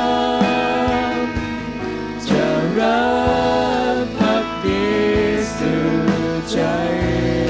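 A live worship band playing a slow Thai Christian worship song, with singers holding long sung notes over acoustic and electric guitars.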